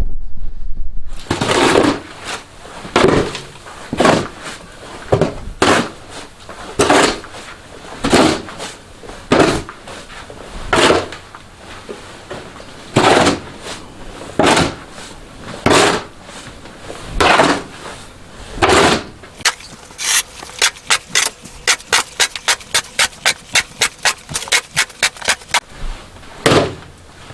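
Snow shovel scraping and scooping heavy snow, one stroke about every second and a half, then a quick run of short scrapes, about four a second, near the end.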